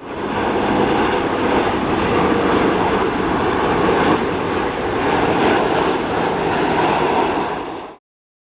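Jet airliner engines running as the aircraft comes in to land, a loud, steady rush of engine noise that cuts off abruptly near the end.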